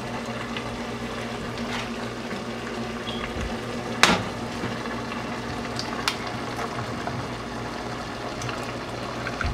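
Chicken and vegetables bubbling and sizzling steadily in a pot, with one sharp crack about four seconds in as an egg is rapped on the pot's rim, and a few lighter clicks later.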